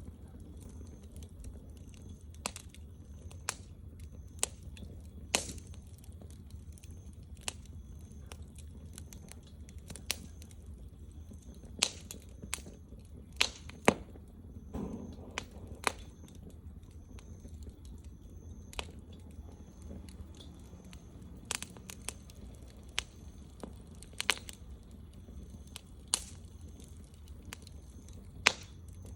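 Wood fire crackling, with irregular sharp pops and snaps of burning wood, a few of them loud, over a low steady hum.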